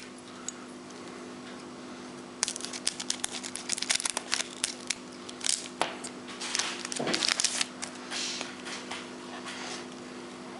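Foil wrapper of a trading-card pack crinkling and tearing as it is ripped open by hand, a dense run of crackles from about two to eight seconds in. A low steady hum runs underneath.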